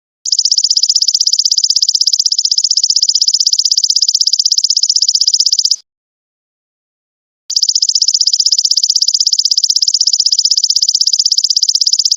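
Golden locust (belalang emas) insect calling: a loud, high, rapidly pulsing trill in two long phrases of about five seconds each, with a pause of about a second and a half between them.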